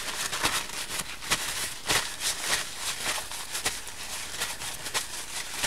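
Paper tissue rustling and rubbing in irregular short scrapes as neon paste is wiped off fingers.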